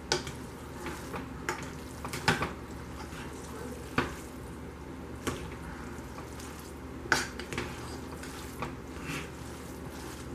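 A utensil stirring and tossing sauce-coated spaghetti in a pot, with irregular clacks, roughly one a second, as it knocks against the pot's sides and rim.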